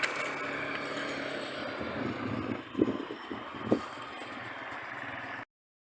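A vehicle engine running steadily, with two short thumps about three and four seconds in, cutting off suddenly near the end.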